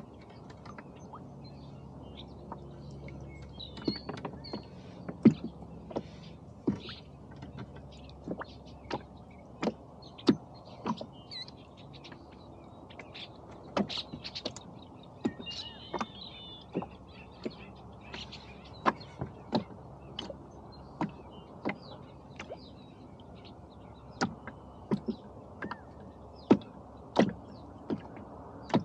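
Irregular sharp knocks and clicks from the rowboat, about one or two a second, with faint bird chirps at times.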